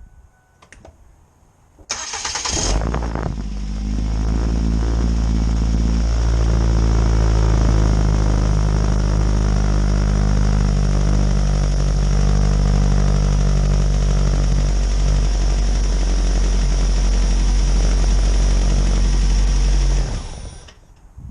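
2007 Ford Focus four-cylinder engine cranked briefly by its newly fitted starter, catching at once and idling steadily, then shut off about 20 seconds in. The new starter cranks instead of clicking, curing the no-start.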